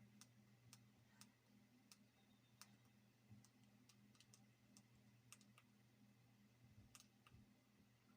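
Faint, irregular clicking, about one or two clicks a second, over a low steady hum: a Sony Ericsson Z800i's keypad buttons being pressed.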